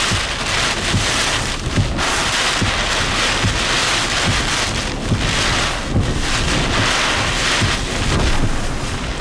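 Hurricane-force wind driving heavy rain, a dense hiss that surges and eases in gusts, with wind buffeting the microphone in irregular low thumps.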